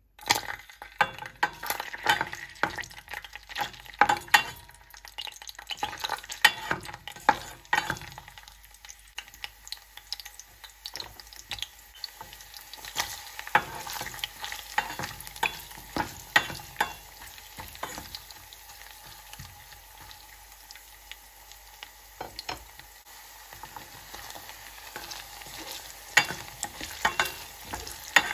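Garlic hitting hot oil in a stainless steel pot and starting to sizzle, then garlic, ginger and onion frying as a spatula stirs them. The spatula knocks and scrapes against the pot, giving frequent sharp clicks over the steady sizzle. The sizzle is strongest in the first several seconds.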